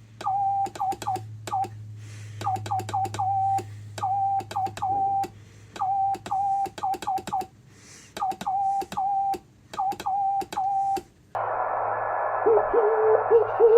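Morse code (CW) from a homebrew single-valve transmitter, heard through a receiver as keyed dots and dashes on one steady tone. Each element chirps, with a quick slide in pitch at its start, and clicks mark the key-down and key-up edges. The chirp comes from the transmitter's deliberately unstable design. Near the end the receiver hiss comes back with a fainter, lower-pitched chirping signal in it.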